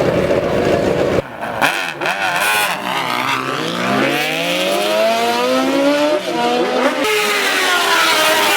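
High-revving sport motorcycle engines at a drag strip: a steady low engine rumble stops abruptly about a second in, then an engine is blipped up and down several times and climbs in pitch as the bike accelerates hard, with the pitch dropping again near the end.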